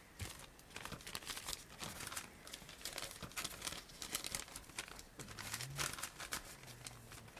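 Paper being folded and crumpled by hand: a dense run of crinkles and rustles that eases off near the end.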